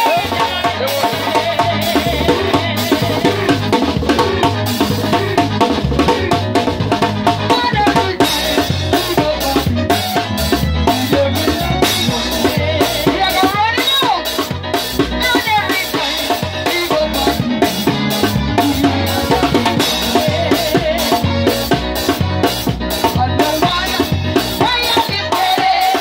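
Live band playing with a loud drum kit, snare and bass drum keeping a steady beat under the other instruments.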